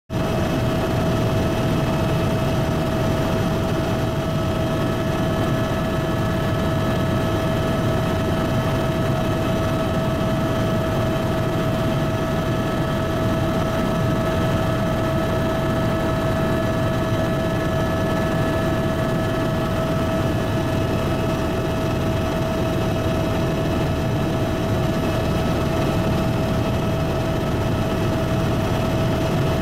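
Helicopter in flight: steady engine and rotor noise with a constant high whine over a low rumble.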